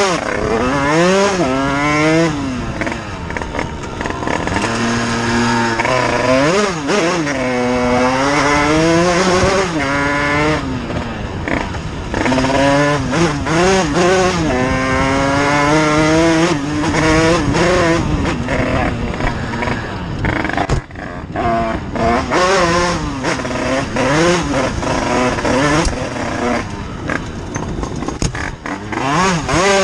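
Dirt bike engine revving hard as the rider accelerates and eases off over and over, its pitch climbing in repeated sweeps and dropping back between them.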